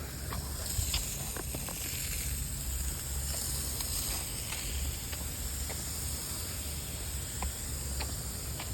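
Newly installed Rain Bird lawn sprinkler heads spraying water, a steady hiss with scattered faint ticks.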